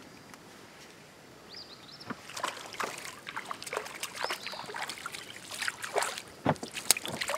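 A hooked fish splashing and thrashing at the water's surface as it is reeled up to the boat: a run of sharp, irregular splashes starting about two seconds in.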